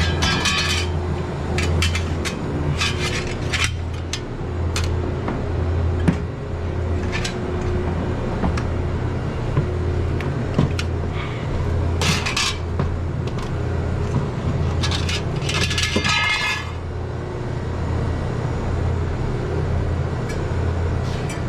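Metal parts clinking, tapping and scraping as a replacement evaporator fan motor and fan blade are handled and fitted together, with a few ringing metallic clinks, over a steady low machine hum.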